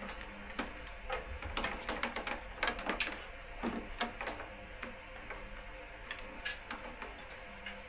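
Irregular clicks and rustles of a charger wire being handled and routed along a motorcycle's frame, busiest in the first few seconds and thinning out toward the end.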